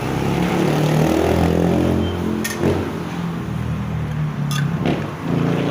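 A nearby engine or motor running steadily with a low hum, and two sharp metal clinks, one about halfway through and one near the end.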